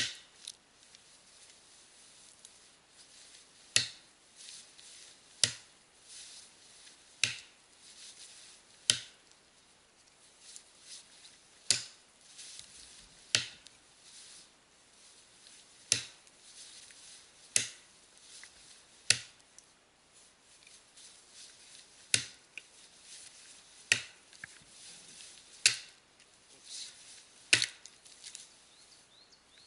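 Axe chopping into the trunk of a standing conifer: about fourteen sharp strikes, one every second and a half to two seconds. They are upswing strokes on the felling cut, meant to make the tree slide down beside the stump.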